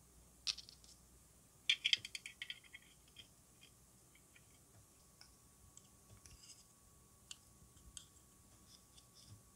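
Small hard plastic model-kit parts clicking and rattling against each other as a roll cage is fitted into a cockpit tub: a sharp click about half a second in, a quick run of rattling clicks around two seconds in, then faint scattered ticks.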